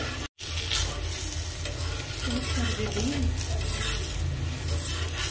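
Lachha paratha frying in ghee on a hot tava: a steady sizzle, with a flat spatula scraping and pressing the paratha against the pan. The sound cuts out briefly about a third of a second in.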